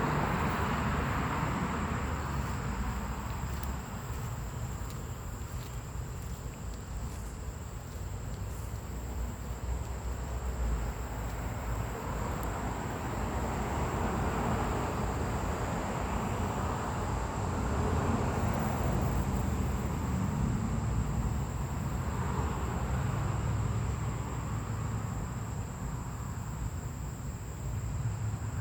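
Outdoor ambience: a steady, unbroken high insect tone over a low rumble that swells and fades every few seconds.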